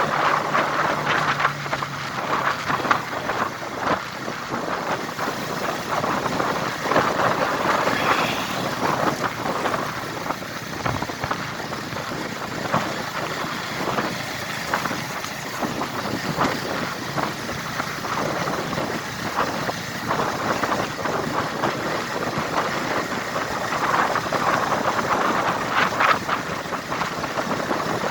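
Steady noise of a vehicle travelling on a road.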